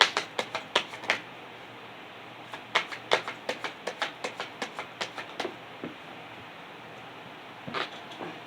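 Tarot cards being handled and shuffled: runs of short, sharp card clicks and taps, a quick cluster at the start and a longer run of three to four a second in the middle.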